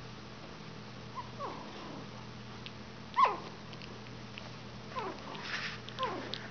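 Three-week-old Border Terrier puppies whimpering and squeaking as they crawl and tussle: about four short calls that fall in pitch, the loudest about three seconds in.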